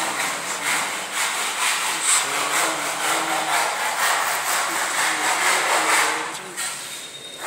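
Continuous rasping of a hand tool being worked quickly back and forth on a wooden door panel, in rapid even strokes, easing off near the end.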